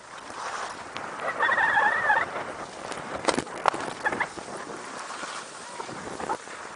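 Skis scraping and chattering over packed snow, with sharp clacks and rattles as the edges hit bumps on the piste. A short shout rings out about a second and a half in.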